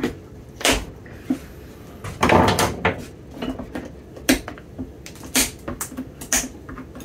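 Handling noises at a cobbler's bench as a leather boot and its removed leather heel stack are moved about: scattered sharp knocks and clicks, with a longer rustling burst a little after two seconds in.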